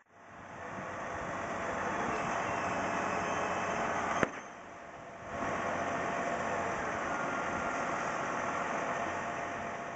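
Engine of a utility boom truck running steadily at idle while it works the boom. About four seconds in there is a single sharp click, then a brief dip in level.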